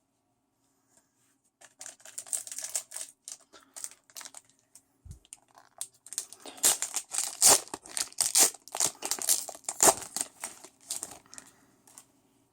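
Pokémon trading cards and their packaging being handled, a quick run of rustling, crinkling and sliding card scrapes that starts about a second and a half in and is busiest in the second half.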